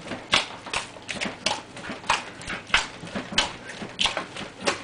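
Hands kneading a large batch of bread dough hard and fast in an earthenware bowl: a quick, uneven run of slaps and thuds, about two a second.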